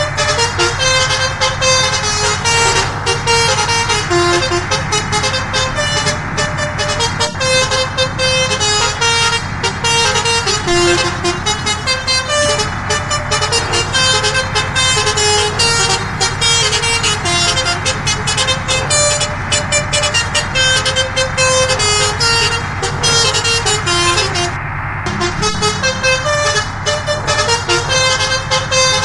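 Indonesian 'telolet' bus horn, a set of multi-tone air horns, playing a quick melody of short notes without pause over the steady low rumble of the bus engine.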